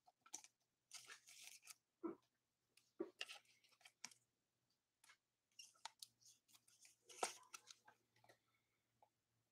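Faint handling noises of trading cards and a clear plastic card sleeve: scattered soft rustles and clicks as a card is slid into the sleeve, the loudest about seven seconds in, over a faint low hum.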